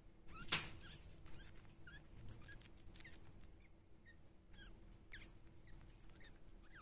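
Djungarian hamster nibbling a piece of green vegetable, with faint crunching clicks, one sharper crunch about half a second in, and a scattered string of short, high squeaks.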